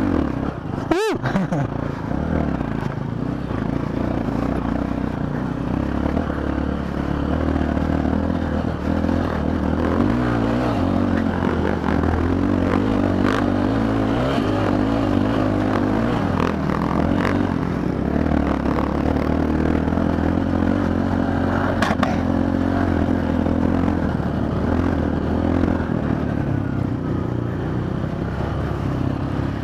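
Single-cylinder trail motorcycle engine running under load on a rough dirt track, its pitch rising and falling with the throttle, with a few sharp knocks from the ride over rough ground.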